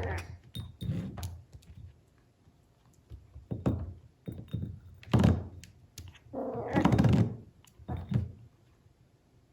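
A puppy knocking a plate about on the floor: a run of irregular thunks and clatters, with a longer rattle about two-thirds of the way in.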